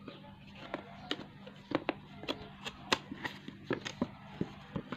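Hands handling and opening a vivo Y85 phone's cardboard box: irregular sharp clicks and taps of the cardboard flaps and packaging, over a steady low hum.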